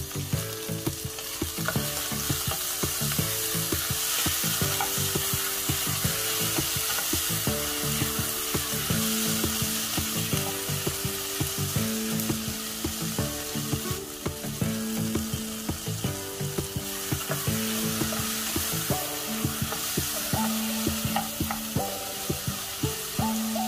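Sliced onion, green chilli, garlic and tomato sizzling in hot oil in a pan, with a wooden spoon stirring them near the end. Soft background music with held notes plays underneath.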